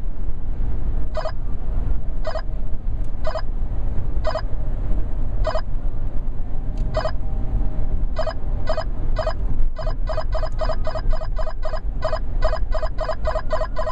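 Whistler 693SE radar detector sounding its Ka-band alert as it picks up a 34.7 GHz radar drone. The short beeps come about once a second at first, then speed up to a rapid run of several beeps a second about ten seconds in as the signal grows stronger. Steady road rumble from the car cabin lies underneath.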